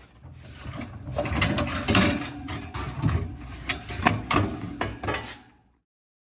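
Plastic refrigerator parts being forced loose by hand against a retainer clip: a rapid run of clicks, knocks and rattles that cuts off suddenly near the end.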